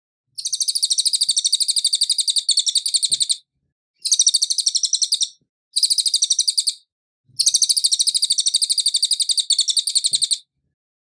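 Cililin singing: four bouts of a rapid, high-pitched trill of fast repeated notes, the first and last about three seconds long and the middle two about a second each, with short pauses between.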